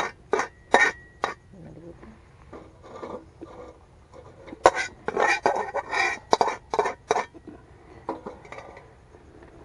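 Dishes and utensils clinking and scraping in irregular bursts: a few sharp clicks at the start, then a busier stretch of clatter about halfway through.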